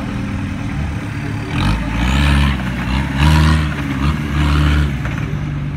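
Off-road trial buggy's engine running under load, revved up three times in a row on a steep muddy climb, each surge rising and then dropping back, the middle one loudest.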